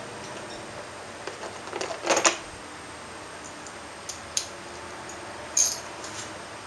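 Scattered metallic clicks and clinks of hand tools working on motorcycle parts during disassembly, with a quick cluster about two seconds in and a few single clicks later.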